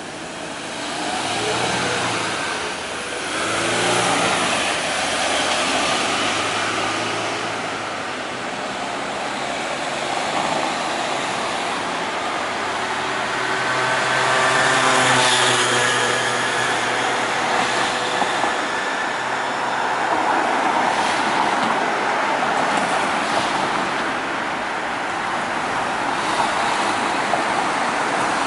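Road traffic with cars driving past one after another. About halfway through, one car passes close with its engine note rising, the loudest moment.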